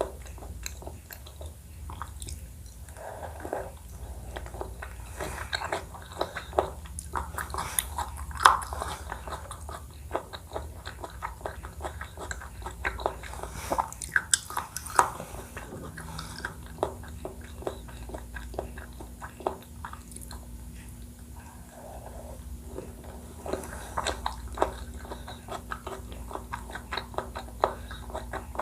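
Close-miked eating of Thai desserts in coconut milk: chewing and biting, with many short sharp clicks and mouth sounds throughout.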